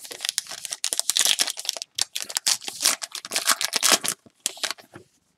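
Plastic trading-card pack wrapper being torn open and crinkled as the cards are pulled out: dense crackling for about four seconds, then a few lighter crackles.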